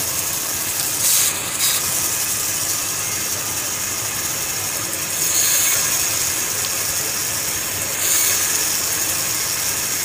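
Band saw running steadily, cross-cutting square wooden sticks into short blocks, the noise rising a little as the blade bites the wood about a second in, again around five seconds and near the end.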